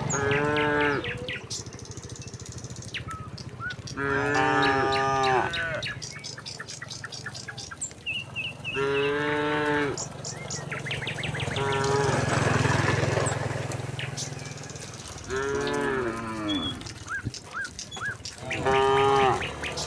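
Cattle mooing: about five separate calls, each about a second long, with small birds chirping faintly between them.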